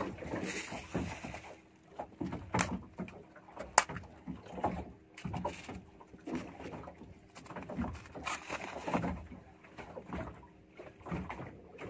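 Water slapping irregularly against the hull of a small boat, with a few sharp clicks from tackle being handled.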